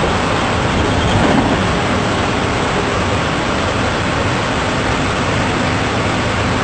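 Engine and road noise of a bus at highway speed, heard inside the driver's cab: a steady low hum under a constant rush of tyre and wind noise, swelling briefly about a second in.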